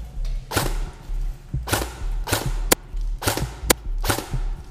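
Background music with a pulsing bass beat and sharp, hissing percussion hits roughly once a second, with two very short sharp clicks in the second half.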